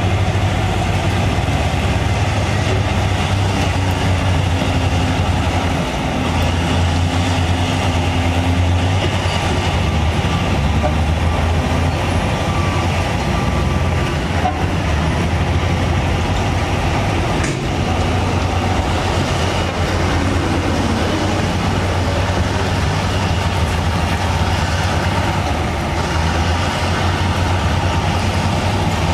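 Heavy diesel earth-moving machinery running steadily with a deep engine drone, and a single sharp clank about two thirds of the way through.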